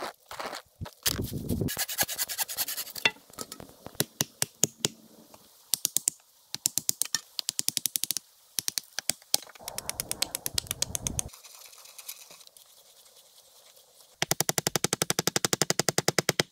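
Hatchet strikes on wood, driving stakes and pegs into a log shelter frame, in several separate runs of sharp knocks. Near the end comes a rapid, loud run of many blows.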